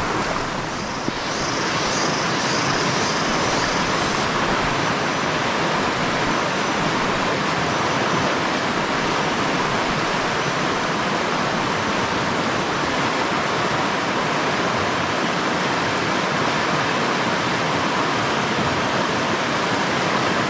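Steady rush of fast-flowing river water. A faint high-pitched chirping comes through it for a couple of seconds near the start.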